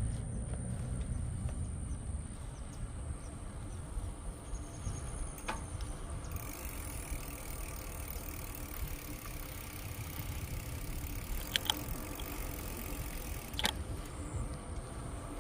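Bicycle rolling along a trail: a steady low rumble of tyres and wind, with a few sharp clicks or rattles from the bike, one about five seconds in and two more near the end.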